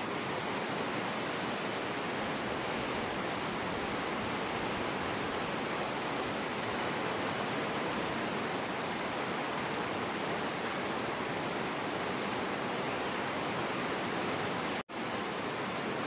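White-water rapids of the River Findhorn rushing over rocks in a narrow gorge: a steady, full rushing roar. It breaks off for a split second near the end and comes straight back.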